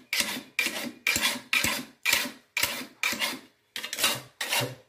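Metal file rasping along the blade of a rubber-tapping knife in short, even strokes, about two a second, to sharpen its edge.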